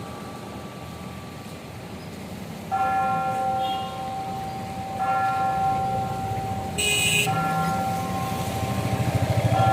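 Clock tower bell striking three times, about two seconds apart, with a fourth strike at the very end. Each stroke rings on as a steady hum. Low traffic rumble runs underneath, and a brief high-pitched sound comes just before the third stroke.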